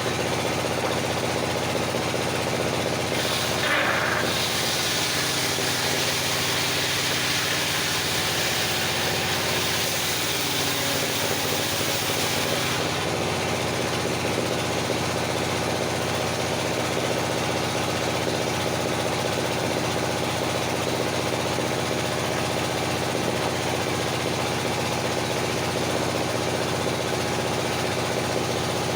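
Circular sawmill with its engine running steadily. From about 3 seconds in to about 13 seconds a hissing whine rises over the engine, the blade cutting through a log, then the engine runs on alone.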